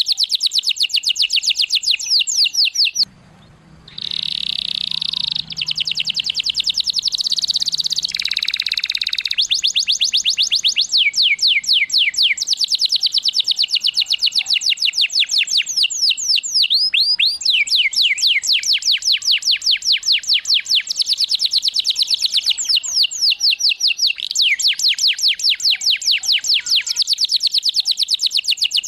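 Domestic canary singing: long fast trills of repeated falling whistled notes. About three seconds in there is a brief break, followed by a denser, buzzier phrase for several seconds before the trills resume.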